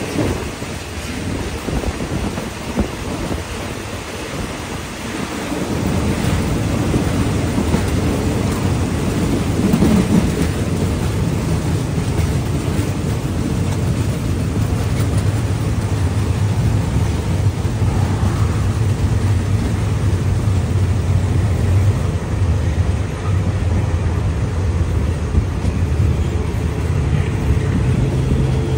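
Diesel-hauled passenger train running along the line, heard from an open coach window: a steady, loud rumble of wheels on rail and rushing air. It grows louder about six seconds in.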